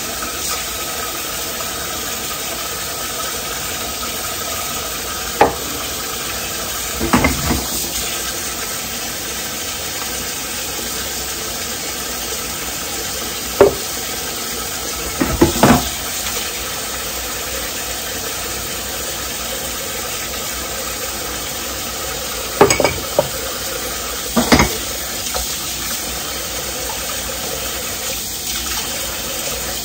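Dishes and cutlery being handled while cleaning a kitchen, with about half a dozen separate sharp clinks and clatters over a steady hiss.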